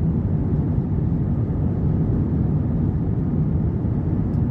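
Steady low engine and airflow roar inside the cabin of an Airbus A321 climbing after takeoff, heard from a window seat over the wing.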